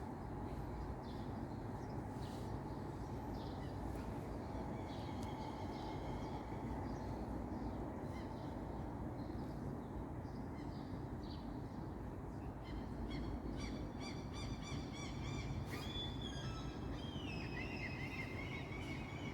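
Songbirds chirping and twittering over a steady low background rumble. The birdsong grows busier in the second half, with a fast trill and then falling whistled notes near the end.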